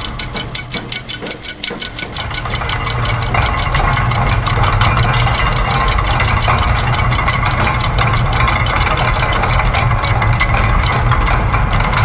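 Layered loops of factory machine sounds: rapid, evenly spaced mechanical clicking of several clicks a second over a steady low rumble. The mix thins for a moment about a second in, then fills back in.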